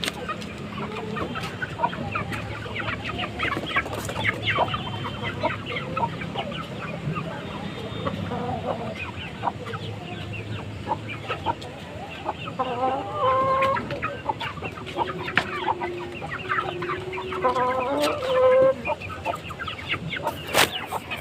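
Chickens clucking and calling, a stream of short clucks with a few longer drawn-out calls now and then.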